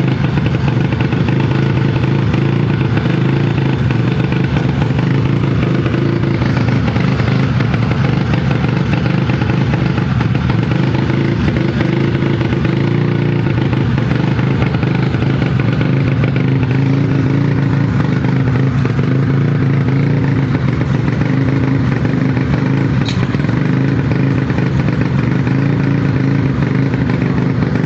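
Yamaha Mio scooter engine, freshly bored up to 150cc, running steadily at an even speed with no revving.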